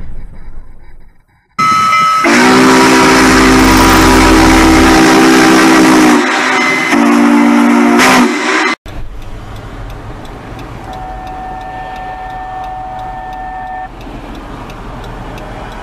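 Steam locomotive whistle blowing with a loud hiss of steam: one long blast of about four seconds, then a shorter one. After a sudden cut it gives way to a much quieter street sound.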